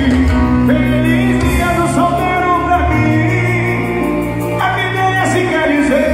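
Loud pop music with a singing voice and heavy, steady bass, played through a car sound system of an 18-inch Eros Target Bass 3K subwoofer and 10-inch Eros midbass speakers.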